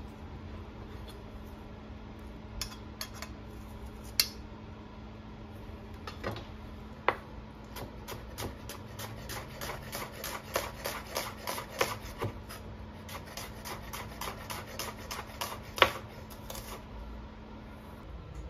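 Kitchen knife slicing a shallot on a bamboo cutting board: a run of quick, even knocks of the blade on the board, about three a second, in the second half, with a few separate knocks earlier. A faint steady hum lies underneath.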